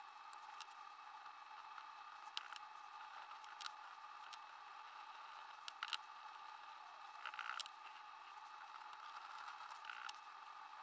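Faint scratches and scattered sharp clicks of a fine-pointed cutting tool scoring the resist layer on a steel axe head, over a steady faint hum.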